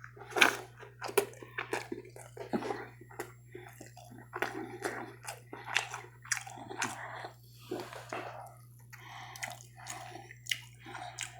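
Close-miked chewing of food, with irregular wet mouth clicks and lip smacks several times a second. A steady low hum runs underneath.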